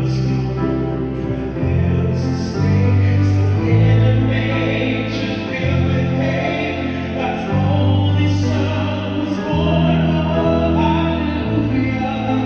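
A man and a woman singing a duet into microphones over piano accompaniment. The man sings throughout, and the woman joins him in harmony partway through.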